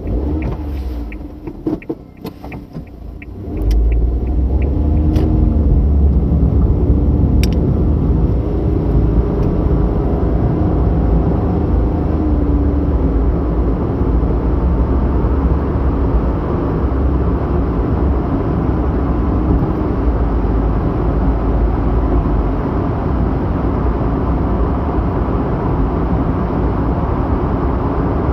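Car road noise heard from inside the cabin: tyre and engine rumble. A few clicks come in the first three seconds, then from about four seconds in the rumble turns steadily louder and deeper as the car drives through a road tunnel.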